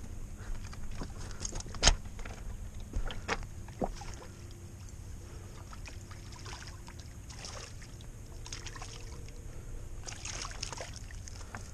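A small hooked striped bass splashing and thrashing at the water's surface as it is reeled in to the bank, with a few sharp slaps in the first four seconds, the loudest about two seconds in.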